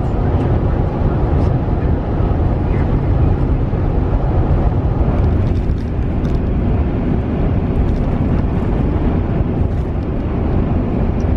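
Steady rumble of a car driving along the road: engine and road noise.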